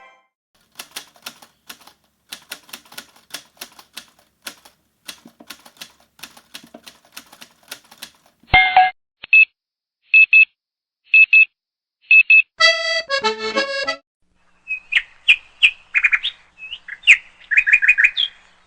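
A string of separate sound effects: about eight seconds of irregular sharp clicks like typing, then a few short electronic beeps, a quick run of stepped notes, and a burst of chirps near the end.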